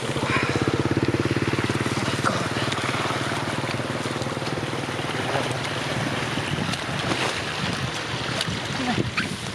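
A small engine running with a fast, even beat, loudest over the first two seconds and then fainter, with wind noise on the microphone.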